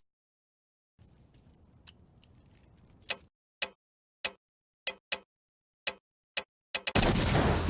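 A hand-held detonator's switch clicked over and over: about nine sharp, single clicks at uneven spacing, after a second of silence and then faint hiss. Near the end, loud music with drums cuts in.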